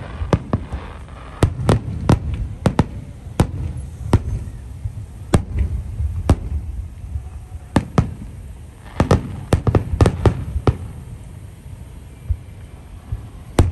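Fireworks display: aerial shells bursting in sharp bangs at uneven intervals, with quick clusters of bangs about a second and a half in and again around nine to ten seconds in, over a steady low rumble.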